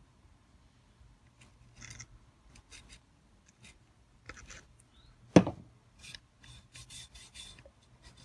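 Light rubbing and scattered small clicks from handling a sharpening kit and its oil bottle while honing oil is dropped onto the coarse stone, with one sharp knock a little past five seconds in.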